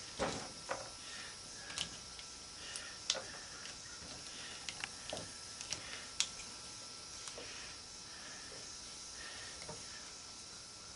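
Scattered light clicks and taps as the parts and screws of a partly dismantled angle grinder are handled, over a faint steady hiss. The clicks thin out after about seven seconds.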